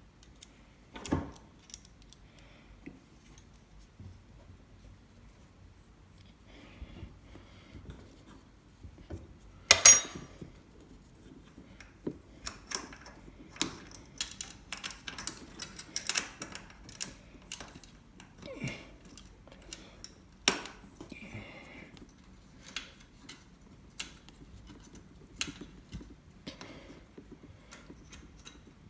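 Metal hand tools and parts clinking, clicking and knocking while a carburetor is fitted to an ATV, with one louder metallic clank that rings briefly about ten seconds in. The engine is not running.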